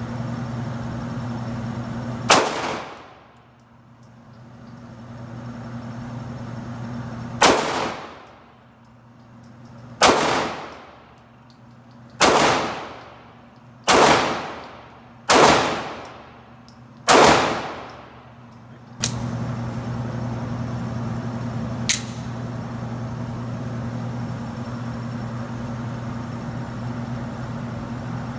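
Seven single shots from a semi-automatic handgun on an indoor range. The first two are about five seconds apart, and the rest come faster, one to two seconds apart. A sharp click follows a few seconds after the last shot.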